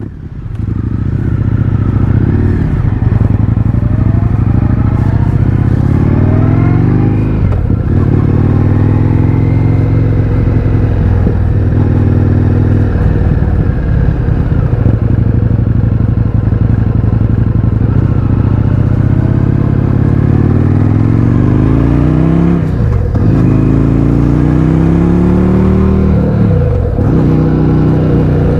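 Indian FTR 1200's V-twin, through an Akrapovic exhaust with the baffles removed, accelerating through the gears: the engine note climbs, drops sharply at each of about five upshifts, and climbs again, with a steadier stretch partway through.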